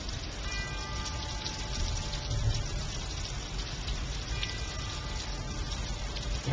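Steady rain hiss, with faint high held tones sounding twice, about half a second in and again a little past four seconds.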